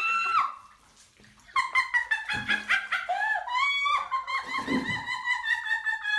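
A dog whining in high-pitched cries. After a short pause about a second and a half in, it breaks into a rapid run of short whines and yips, several a second.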